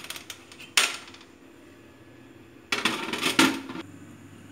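Baatis turned by hand on the metal wire rack of a baati oven: a few light clicks, then a sharp tap about a second in. A short burst of clicking and rattling follows near three seconds in.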